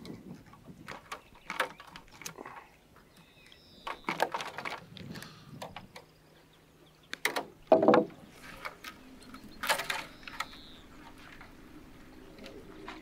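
Thin wire and wire mesh being laced, twisted and cut with pliers: scattered irregular clicks and rattles, the loudest about eight seconds in.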